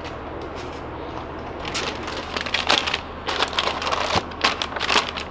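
Plastic cheese packaging crinkling as bagged cheeses are handled and set into a clear plastic bin, in irregular crackly bursts that begin about two seconds in.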